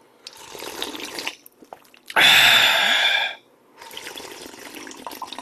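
A person slurping hot gamjatang (pork-bone soup) broth straight from a metal bowl in three long sips, the middle one the loudest.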